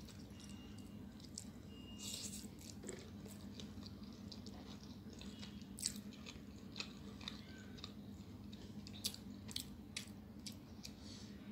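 Close-miked mouth sounds of someone chewing and biting chow mein noodles, with many short wet clicks and smacks, over a low steady hum.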